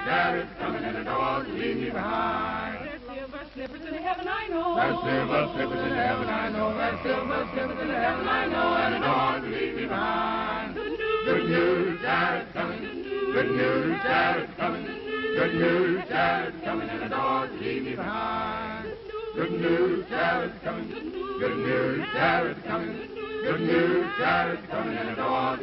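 A choir singing, many voices holding long notes that rise and fall together.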